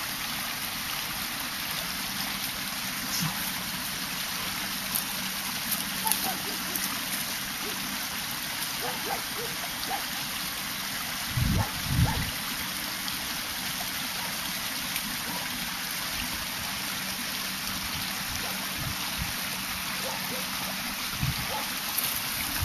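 Small shallow stream trickling and gurgling steadily over stones and debris, with two low thumps about halfway through.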